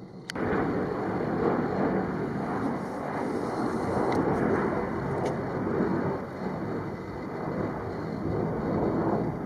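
Jet aircraft engine noise: a loud, steady rushing rumble that cuts in abruptly just after the start.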